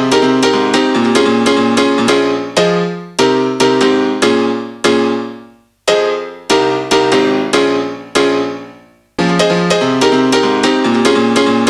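Background music played on a piano-like keyboard: quick repeated chords in a steady rhythm, twice breaking off into a held chord that fades to silence before the playing resumes.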